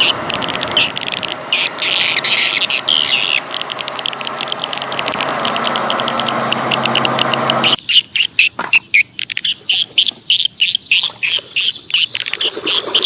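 Small birds chirping rapidly and repeatedly throughout. For most of the first eight seconds a steady rushing noise with a low hum underneath runs along with them, then stops abruptly.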